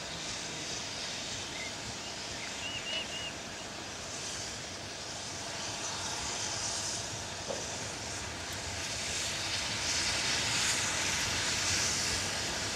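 BR Standard Class 7 'Britannia' Pacific steam locomotive No. 70000 approaching slowly, with steam hiss and soft exhaust beats that grow louder after about nine seconds as it nears.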